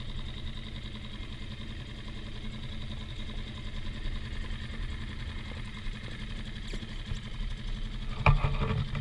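Dinghy outboard motor running steadily at idle as the inflatable moves slowly through the water. A few louder knocks and rustles come in the last second.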